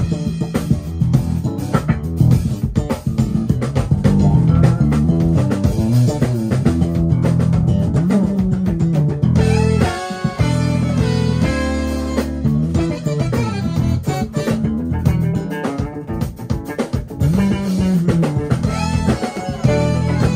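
Live band playing, led by a prominent electric bass line with notes that slide up and down, over drums, electric guitar and horns.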